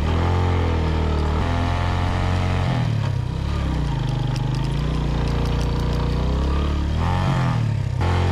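Motorcycle engine running as the bike rides along a sandy track, its pitch rising and falling with the throttle, with brief dips in the note about three seconds in and near the end.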